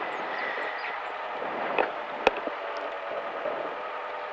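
A 1964 Mini Cooper S's four-cylinder engine idling steadily, heard from inside the car while it waits at the start of a rally stage. A single sharp click comes about two seconds in.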